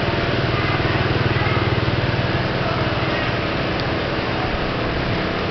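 A small engine running steadily with an even low drone, a little louder in the first half, over a constant noisy haze.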